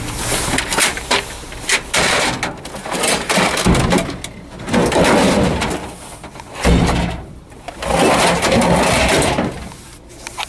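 Discarded electronics (plastic printer parts and monitors) being shifted around by hand in a steel dumpster: a run of sharp knocks and clunks, with longer rough scraping and rustling between them.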